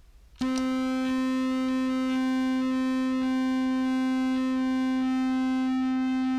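Contrabass clarinet note frozen by a Superego+ sustain pedal and fed through a Fender Shields Blender fuzz: a steady, buzzy, organ-like drone that starts suddenly about half a second in and holds one pitch, with faint shifting pulses inside it.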